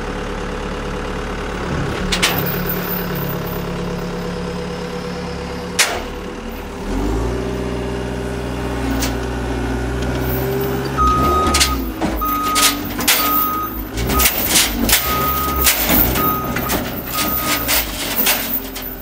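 Cat 287C compact track loader's diesel engine running, its note shifting and growing heavier about seven seconds in. From about eleven seconds a backup alarm beeps in short beeps, roughly two a second, over several sharp clanks.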